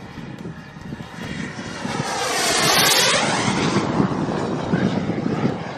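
Turbine engine of a radio-controlled model jet flying past, growing to its loudest about two to three seconds in with a sweeping whoosh, then slowly fading.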